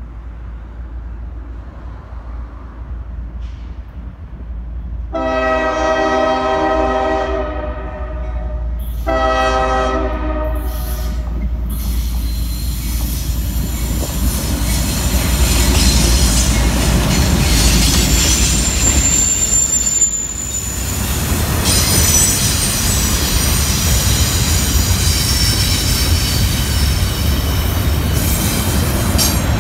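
Freight train led by GE ES40DC diesel locomotives sounding a chimed air horn, a first-generation Nathan K5HL described as fouled, in two blasts: a long one starting about five seconds in, then a shorter one. The locomotives then pass with a loud diesel rumble, and the double-stack intermodal cars roll by with a steady rumble of wheels and high-pitched wheel squeal on the curve.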